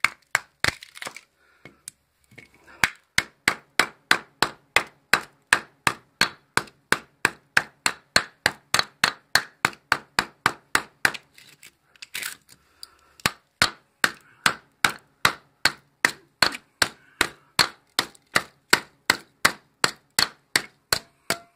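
Hammer blows striking a microwave transformer, knocking the copper coil out of its split steel core. The blows come in quick, even succession, about two or three a second, in two long runs with a short break about halfway.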